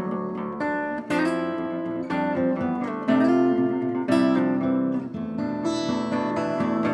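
Background music: acoustic guitar strummed and plucked, with chords changing about once a second.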